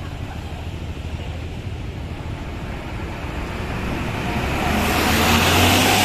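A bus drawing near: a steady low engine rumble, joined from about four seconds in by a rushing sound that swells and grows louder as it gets close.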